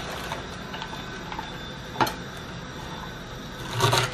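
Quiet handling of shredded cabbage on a wooden cutting board, with a few light clicks, a sharp knock about halfway through, and a louder knock near the end as a kitchen knife comes down on the board to start cutting.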